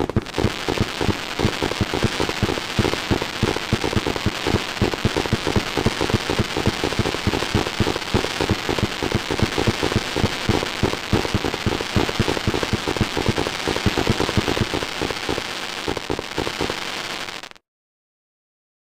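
Fireworks in a dense, rapid barrage of crackling bangs, like a finale. It cuts off suddenly near the end.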